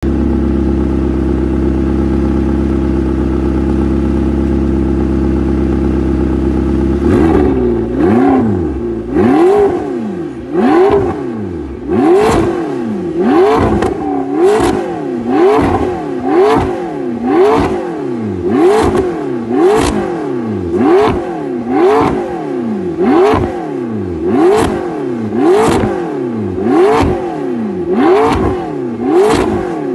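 McLaren 650S's twin-turbo V8 through an Armytrix header and titanium slip-on exhaust, idling steadily, then from about seven seconds in blipped again and again while standing still, roughly one sharp rev every one and a half seconds, each rising and falling quickly in pitch.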